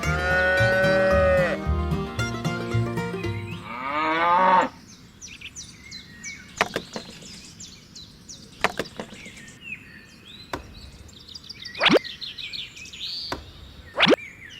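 A cow mooing once over upbeat background music. After the music cuts off, a few sharp knocks sound with faint bird chirps behind them.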